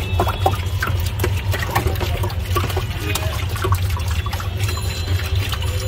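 A steel ladle stirring and sloshing pink sherbet in a plastic tub, with many short splashes and clinks, over a steady low hum.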